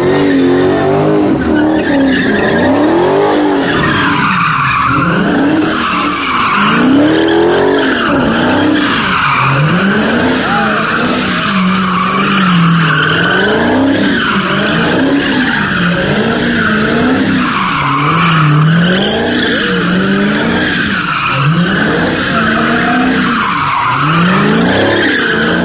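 Dodge Challenger Hellcat's supercharged V8 revving up and down again and again, about once a second, while its rear tyres squeal and skid continuously through donuts.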